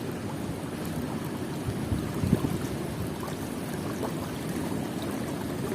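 Strong wind rumbling on the microphone, with a few harder gusts thumping about two seconds in, over the sound of moving water.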